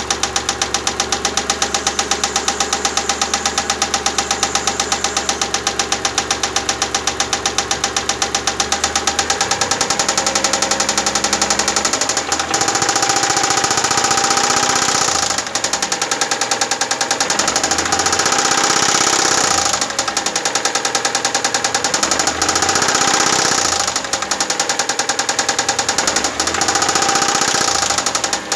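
Mitsubishi 6G74 V6 engine knocking: a steady, even knock at idle, then the throttle is blipped about four times, the engine speeding up and dropping back each time.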